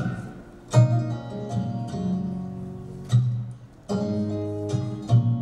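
Recorded acoustic guitar music in an instrumental gap between sung lines: several strummed chords, each left to ring.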